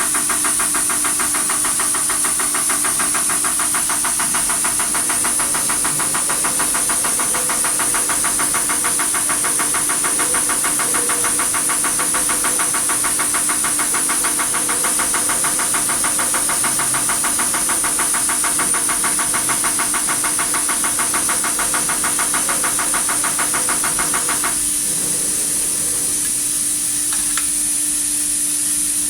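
DAF 105 unit injector running on a test bench: a rapid, even ticking of the injector firing over a steady hum and a high hiss. The ticking stops abruptly about 25 seconds in, and the hum and hiss carry on.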